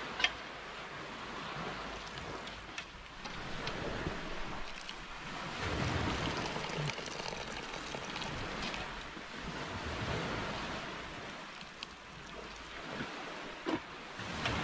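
Sea surf washing on the shore, swelling and fading every few seconds, with wind on the microphone and a few small knocks.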